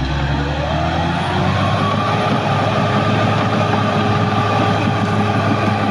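Caterpillar D6R bulldozer's diesel engine revving up over about the first second and a half, then holding steady at high revs, as when working under load.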